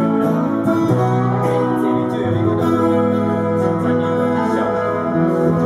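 A live song with a voice singing over two amplified frame-body silent guitars, the notes held long as the song draws to its close.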